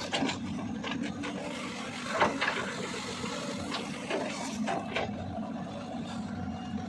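CAT 320D L long-arm excavator's diesel engine running steadily, with a few short knocks and scrapes from the working machine.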